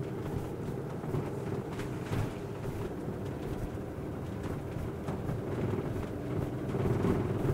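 Motorhome driving, its engine and road noise heard from inside the cab as a steady low sound with a few faint rattles.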